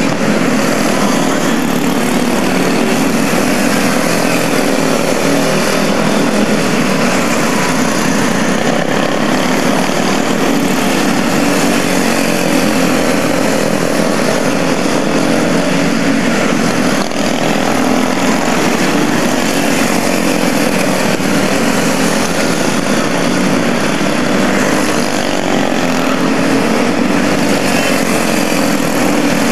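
Small single-cylinder engines of quarter midget race cars running at racing revs as the cars lap the track, a steady drone with no break.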